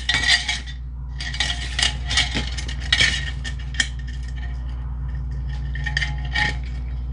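Steel recoil-starter spring being wound by hand into a metal pull-starter housing: repeated metallic scraping and clinking, busiest in the first three seconds, then scattered clicks. A steady low hum runs underneath.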